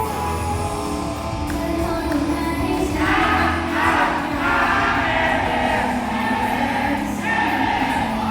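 Live performance of an idol pop song: the instrumental plays with a steady bass, then a group of voices comes in singing together about three seconds in.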